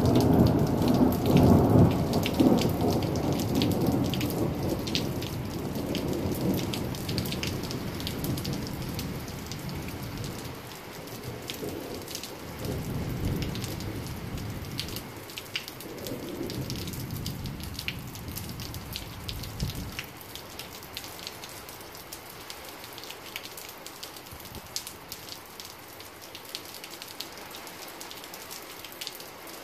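Rolling thunder, loudest at the start and dying away in several swells over about twenty seconds, over steady rain with close drops ticking.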